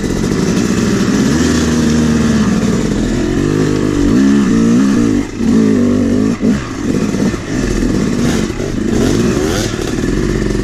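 Two-stroke Yamaha dirt bike engine, recorded from on the bike, revving up and down repeatedly as it is ridden over rough trail. The throttle is cut briefly twice around the middle.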